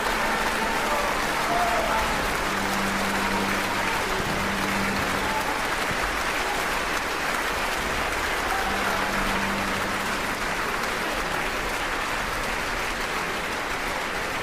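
Theatre audience applauding steadily for the dancers' curtain call, easing slightly toward the end.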